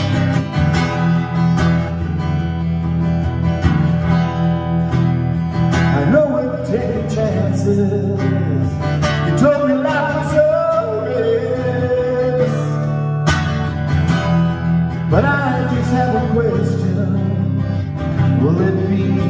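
Strummed acoustic guitar with a man singing over it. The guitar plays alone at first, the voice comes in about six seconds in, drops out for a few seconds after the middle, and returns near the end.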